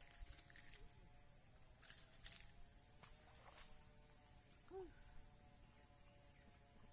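Steady high-pitched insect chorus, crickets or similar, with a single sharp click about two seconds in and a faint short chirp near the end.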